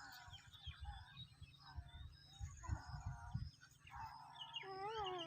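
Several birds chirping and calling over one another in short, overlapping calls, with a few low muffled thuds underneath.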